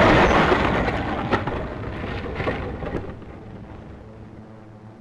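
A sudden loud rushing, crackling noise over a low rumble, fading away over about three seconds to a faint hum, as on a dubbed newsreel sound-effects track over gliders skidding in to land.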